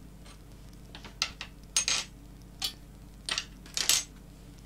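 Small metal hardware (screws and angle brackets in a plastic bag) being picked up and set down on a wooden workbench: a scattered series of light clicks and clinks, several in quick little clusters.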